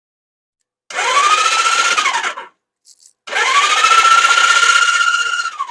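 Electric starter cranking the Suzuki GS550's four-cylinder engine in two bursts, about a second and a half and then about two and a half seconds long. Each burst is a whine that rises in pitch as the starter spins up, holds steady and drops away when it is released. The engine is being turned over for a spark check, with no spark on two of its cylinders, and it does not start.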